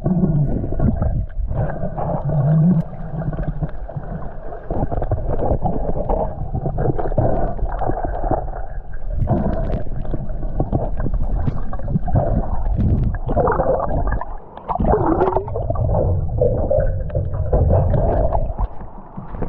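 Muffled underwater sound of a snorkel diver swimming: continuous water rushing and gurgling over the camera housing, with wavering low tones.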